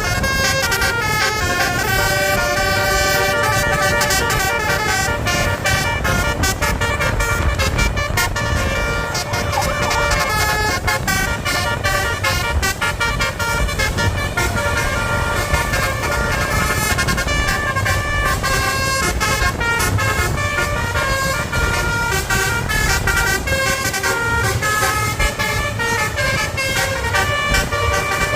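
Basuri telolet bus horn playing fast melodic runs, one note jumping to the next every fraction of a second, over steady low bus engine and road noise.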